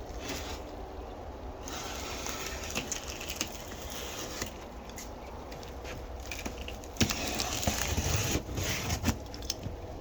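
Packaging being handled while a miter saw is unboxed: rustling and crackling, with several sharper knocks and clicks in the louder second half.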